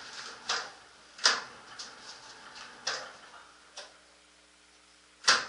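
A handful of sharp clicks and knocks at uneven spacing from equipment being handled and set down on a hard surface. The loudest comes about a second in and another near the end.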